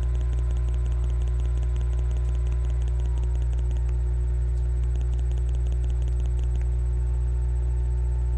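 Steady low electrical hum, with a faint fast ticking over it that stops about two-thirds of the way through.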